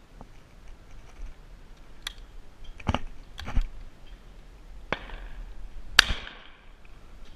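A single shot from a 20-gauge Rizzini BR-550 side-by-side shotgun about six seconds in: a sharp crack with a short ringing tail. A few shorter knocks and a click come before it.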